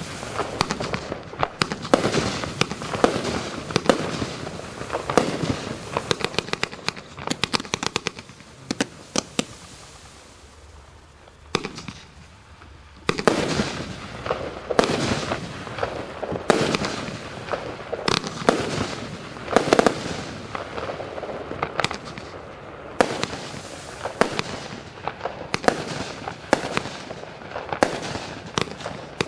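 A 238-shot compound firework cake firing, its shots launching and bursting in quick succession. About a third of the way in, the shots ease off for a few seconds, then the rapid firing resumes with a sharp shot.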